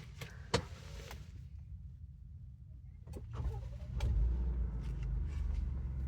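A car being started: a few sharp clicks, then about three seconds in the engine cranks and catches, settling into a steady low idle rumble from about four seconds in.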